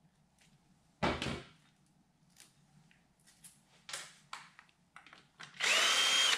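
Ryobi cordless drill spinning out an engine cover screw near the end, a short steady whine at one pitch. Earlier, a single knock about a second in and light clicks of screws and tools being handled.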